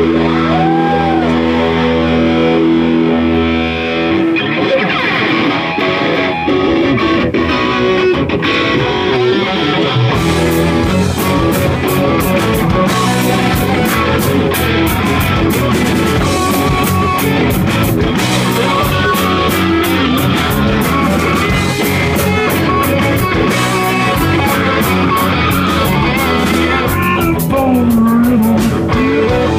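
Live rock band playing loud: electric guitars, bass and drum kit. It opens on a held, sustained chord, breaks into busy guitar playing about four seconds in, and the drums and cymbals come in about ten seconds in.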